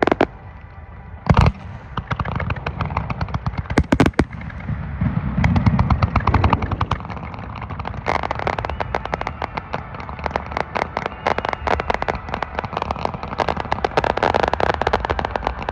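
Fireworks going off: a few loud separate bangs in the first four seconds, then a dense run of rapid crackling pops from about five seconds in, thickening after about eight seconds.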